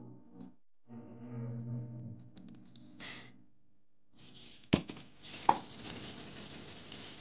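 Scissors cutting thick styrene sheet, creaking through the plastic, then an aerosol can of 3M Spray Mount adhesive shaken hard, its contents swishing with a couple of sharp knocks of the mixing ball.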